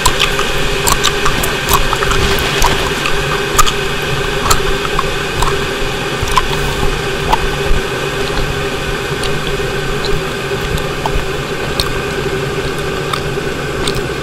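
Dense, steady droning noise with several fixed hums in it, and many small clicks and crackles scattered through it.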